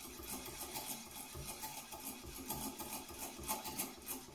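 Steel knife edge rubbing back and forth on a wet Naniwa Chosera 5000 grit waterstone during sharpening, in a steady rhythm of about two to three strokes a second.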